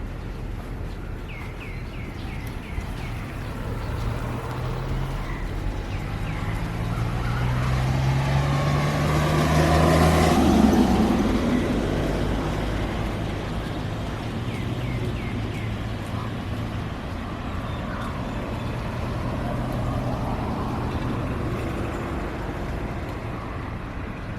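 A motor vehicle drives past. Its engine note rises and grows to a peak about ten seconds in, then fades away, over a steady background hiss, with a few short bird chirps.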